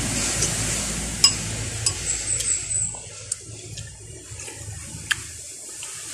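A metal spoon clicks against a soup bowl a few times while soup is eaten, over a steady rushing noise that dies down about three seconds in.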